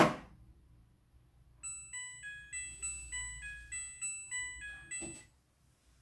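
Midea front-loading washing machine's door lock releasing with a sharp click, then a short beeped tune of about a dozen notes signalling the end of the wash cycle, and a soft thunk near the end as the machine switches off.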